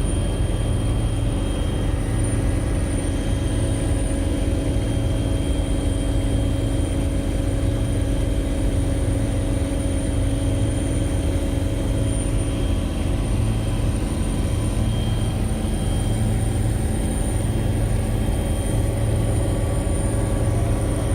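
Helicopter in flight, heard from inside the cabin: a steady rotor and engine drone with a constant high whine over it.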